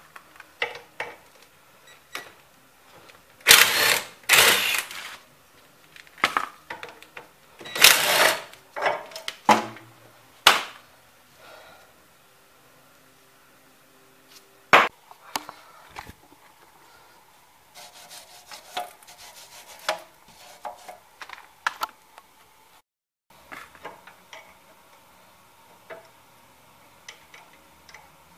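Intermittent clinks and knocks of hand tools and steel suspension parts being handled, with two louder scrapes of about a second each, around four and eight seconds in.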